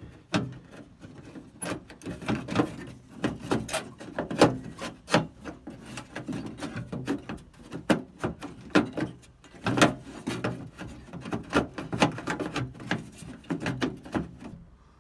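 Irregular clicking, knocking and rubbing of metal parts as the stuck handle and latch mechanism inside a 1956 Ford F100 door is wiggled and pushed to free it.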